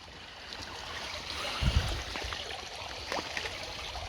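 Shallow brook water running and trickling, with a single dull low thump about a second and a half in and a few faint small clicks.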